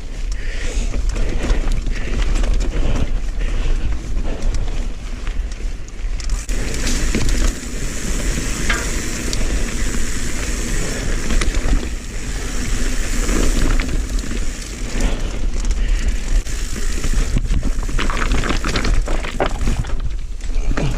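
Riding noise of a mountain bike climbing a wet, slippery dirt trail: tyres rolling over the ground, with wind rumble on the microphone throughout and a steady high hiss that sets in about six seconds in.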